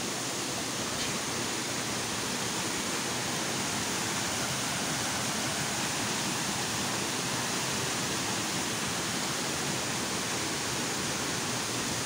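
Steady rush of a mountain stream cascading over rocks.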